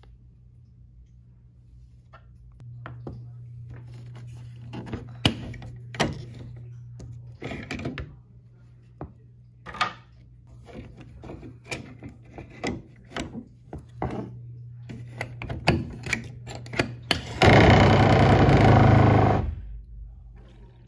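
Plastic clicks and knocks from a Whirlpool EveryDrop refrigerator water filter being handled and fitted into its housing behind the fridge's bottom grille, over a steady low hum that starts a few seconds in. Near the end a loud rushing noise lasts about two seconds.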